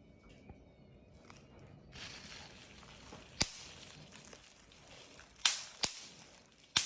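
Bubble wrap crinkling, starting about two seconds in, with four sharp pops of bubbles bursting, the last three in quick succession near the end.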